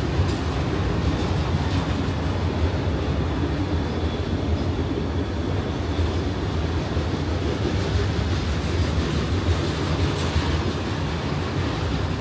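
Freight train of autorack cars rolling steadily past, a continuous rumble of steel wheels on rail with light clacking over the rail joints.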